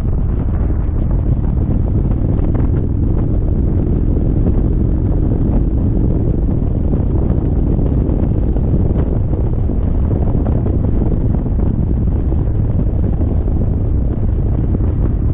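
Steady wind buffeting the microphone on a moving Indian Chieftain motorcycle, with the bike's V-twin engine running underneath at a constant pace.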